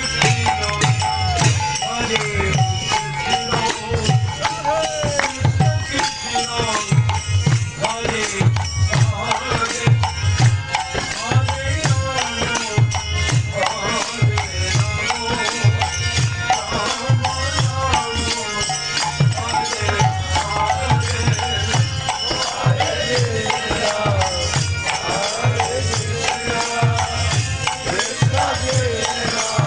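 Devotional kirtan: voices chanting over a steady hand-drum beat and jingling hand cymbals.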